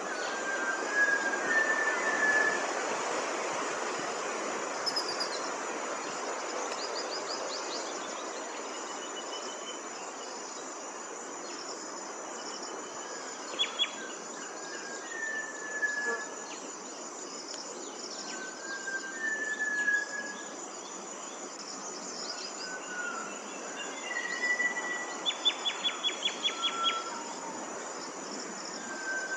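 A small waterfall's water rushing steadily under a constant high insect drone. Birds call over it with short whistled notes again and again, and two bursts of rapid chattering notes, one about halfway through and a longer one near the end.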